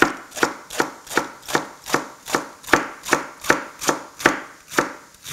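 Chef's knife slicing napa cabbage into shreds on a wooden chopping block: a steady rhythm of crisp cuts, each knocking on the wood, about two and a half a second.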